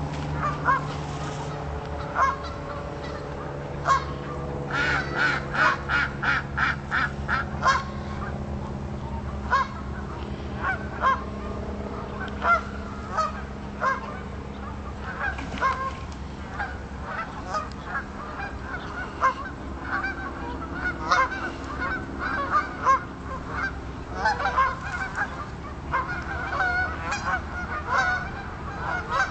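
A flock of Canada geese honking on the water, with scattered calls throughout and a quick run of honks about five to eight seconds in.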